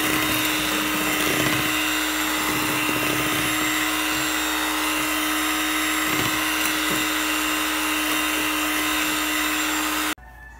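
Electric hand mixer running at a steady speed, its twin wire beaters whirring through cake batter in a glass bowl with a constant motor hum. The sound cuts off suddenly near the end.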